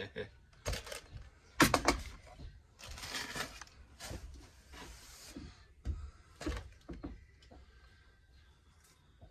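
A cardboard box being unpacked by hand: rustling of packing material and a series of knocks and clatters as parts are lifted out, the loudest clatter about two seconds in.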